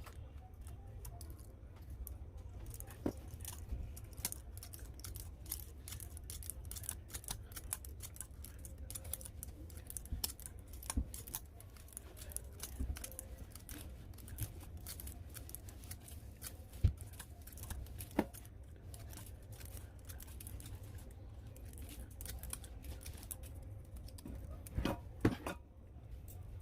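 Irregular sharp clicks, ticks and small scrapes of close-up hand work on small metal and plastic parts over a steady low hum, with a few louder knocks around two-thirds of the way through and near the end.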